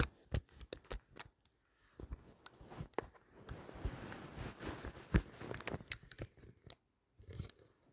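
Handling noise close to the microphone: a string of irregular clicks and knocks with rustling, busiest in the middle and briefly dropping away near the end.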